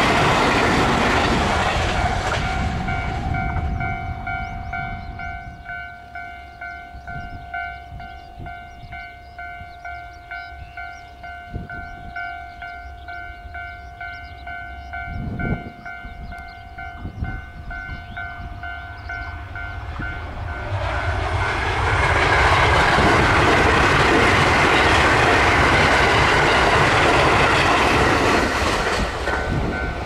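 Level-crossing warning bell ringing in a steady repeating pattern as the noise of a departing local train fades in the first few seconds. About two-thirds of the way in, a Thunderbird limited express electric train runs past for about eight seconds, its wheels on the rails drowning out the bell, which is heard again near the end.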